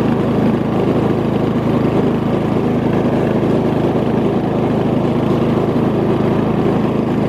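Briggs & Stratton 15.5 hp overhead-valve engine on a Murray riding lawn mower running steadily as the mower drives along slowly.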